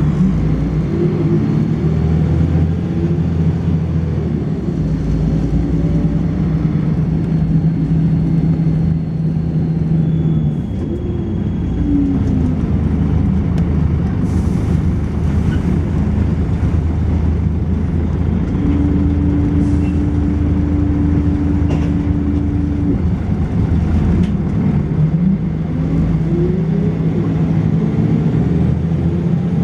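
Volvo B10BLE bus engine and ZF automatic gearbox under way, the engine note sweeping through gear changes three times. A thin, high-pitched whine runs faintly over the engine for roughly the first third.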